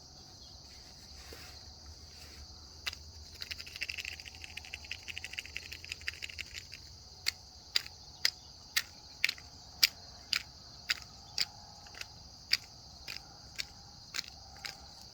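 Steady chorus of crickets. For a few seconds there is a soft, dense crackling of the rabbit chewing pear, followed by a run of sharp clicks about two a second.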